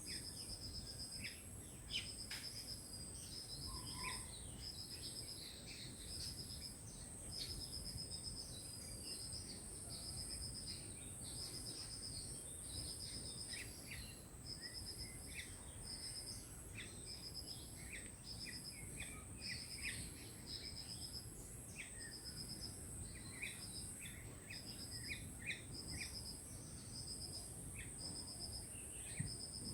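Birds chirping in short scattered calls over a steady chorus of insects: one high, continuous insect tone and another insect trilling in pulses about once a second, with a low background rumble.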